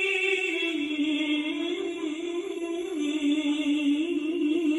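A man's melodic Islamic recitation chanted into a microphone and carried over a PA. It is one long drawn-out note that wavers slightly in pitch.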